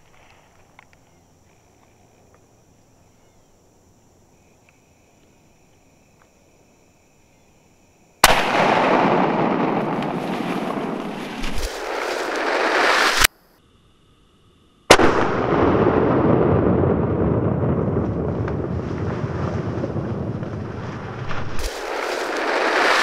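Muzzleloader rifle shot twice over: each time a sudden blast and then a long, loud roll of noise that fades slowly. The first ends abruptly after about five seconds; the second starts about a second and a half later and runs about eight seconds.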